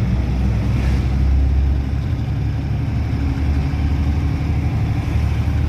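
Truck engine running steadily as the truck drives along, a constant low drone.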